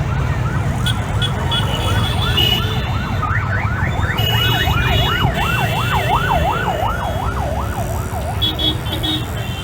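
Emergency vehicle siren sweeping up and down, first quickly at about four sweeps a second, then in slower, louder rising-and-falling cycles in the middle before fading near the end, over a steady traffic rumble.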